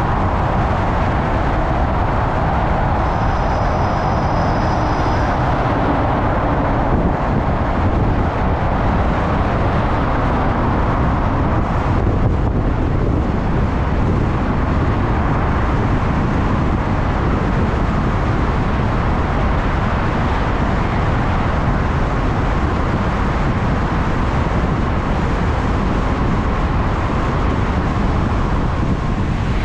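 Steady wind and road noise from riding a 3.2 kW CSC City Slicker electric motorbike at speed, with no engine sound. A faint high whine comes in briefly about three seconds in.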